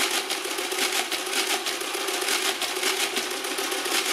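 Madas BZS electric mechanical calculator, about 1960, running an automatic division: its motor hums under a rapid, even clatter as the mechanism cycles.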